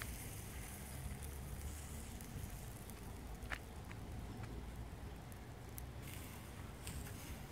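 Faint clicks of a knife against a flat metal kebab skewer as an Adana kebab is pushed off it onto flatbread, over a low steady rumble.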